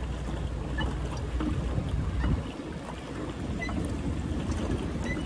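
Wind rumbling on the microphone over water moving around a pedal boat on a river, with a few faint, short high chirps.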